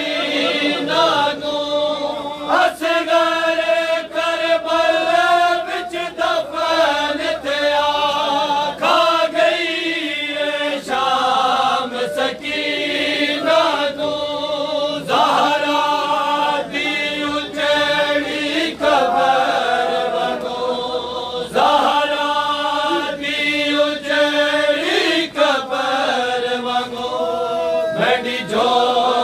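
Group of men chanting a noha, a lament sung in phrases of a second or two with many voices joining, and slaps of hands on chests (matam) keeping time.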